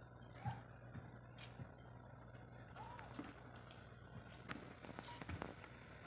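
Faint, quiet scene with a steady low hum: a soft kitten mew about three seconds in, then light taps and clicks near the end as a hand takes hold of the wooden drawer's metal handle.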